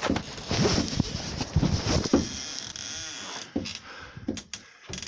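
Rustling and irregular knocks of handling noise from a phone carried in a pocket, with a short creak about three seconds in.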